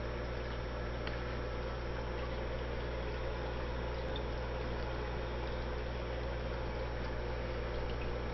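Aquarium pump running steadily: a low hum with water bubbling and churning.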